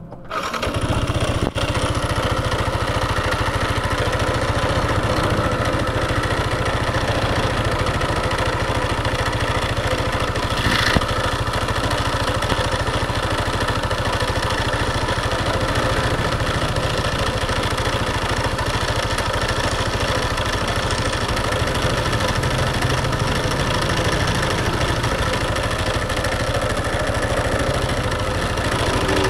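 Motorcycle engine starting and then idling steadily. There is a brief click a second or so after it catches and a short louder burst about eleven seconds in.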